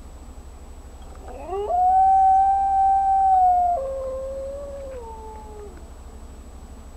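Wolf howling: one long howl that slides up, holds a steady note, drops abruptly to a lower note partway through, then falls away.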